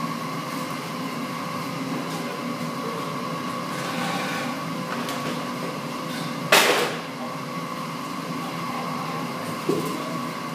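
Steady mechanical hum with a constant high whine over a low rumble. One sharp knock about six and a half seconds in, and a smaller one near the end.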